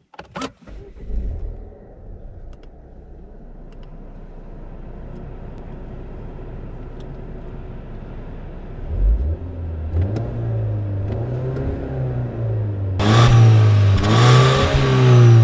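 Volvo V40 T5 on its standard exhaust: the engine starts about a second in and settles into a steady idle. From about ten seconds in it is louder, heard from behind the car, and is revved up and back down twice near the end.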